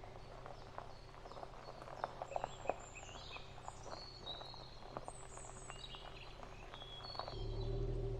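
Songbirds chirping and twittering in short rising and falling calls over a steady low rumble. Many short crackles and snaps mix in, the sharpest a little over two seconds in. The low rumble grows louder near the end.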